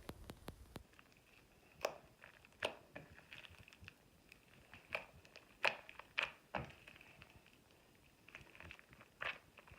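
Close-up handling of a bath product, making scattered, irregular sharp pops and crinkly crackles with quiet gaps between them. About half a dozen louder snaps stand out, most of them in the middle.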